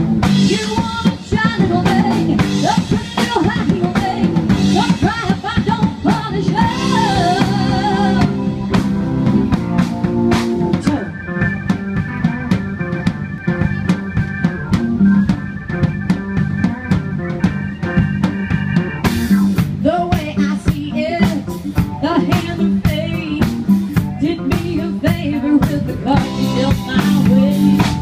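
Live band playing: a woman singing over a drum kit, electric guitar and keyboard. About eleven seconds in the singing stops for an instrumental break carried by held high notes, and the singing comes back near the twenty-second mark.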